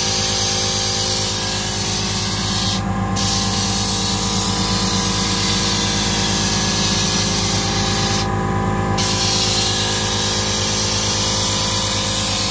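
Compressed air hissing steadily into a tyre through a tyre changer's inflator, cut off briefly twice, about three seconds in and again near the middle, over a steady machine hum.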